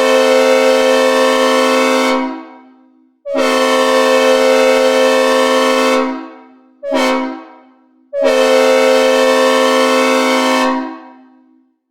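Synthesized recreation of a Leslie S5T five-chime diesel locomotive air horn sounding a chord in four blasts: long, long, short, long, the pattern of the grade-crossing signal. Each blast sags slightly in pitch as it starts and dies away in a reverb tail.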